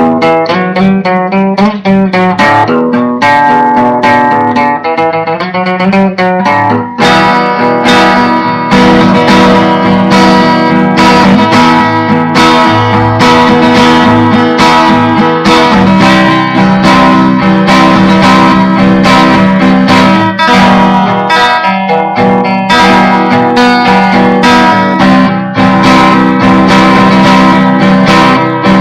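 Solo acoustic guitar improvisation, recorded loud with very bad sound quality. It opens with quick picked notes, then from about seven seconds in turns to steady, dense strumming.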